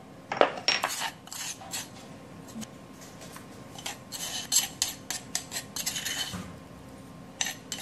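Metal spoon scraping and clinking against a granite mortar and a ceramic bowl as pounded roasted grated coconut is scooped out. The scrapes and clicks come in two spells with a quieter pause between, and one more scrape near the end.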